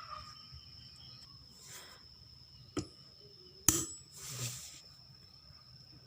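Two sharp metal clinks about a second apart, the second ringing briefly, as a tire iron and small hammer are set against an angle grinder armature's ball bearing to pry it off, with softer scuffs of handling around them.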